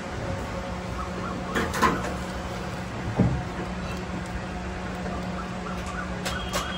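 Steady background hum with two sharp knocks, about two and three seconds in, and a few light clicks near the end: utensils and containers being handled on a food stall counter.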